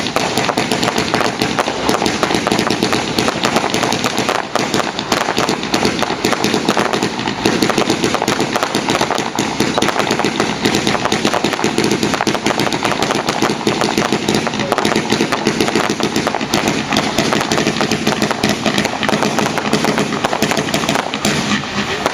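Fireworks going off as a dense, unbroken string of rapid small bangs, like a long chain of firecrackers.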